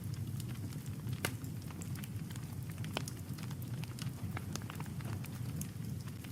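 Campfire crackling with scattered sharp pops over a steady low rumble; the loudest pops come about a second in and about three seconds in.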